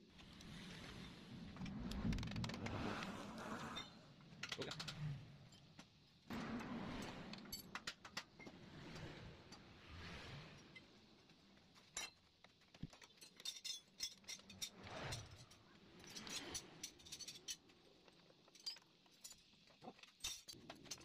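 Faint metallic clinks and rattles as a motorcycle's rear brake caliper and its bolts are handled and worked loose by hand. The clicks are scattered and uneven, with short stretches of near silence between them.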